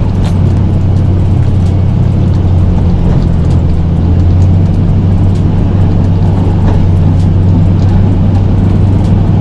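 Snow-plow truck's engine running steadily with a low, even hum while the truck pushes a load of snow with its plow.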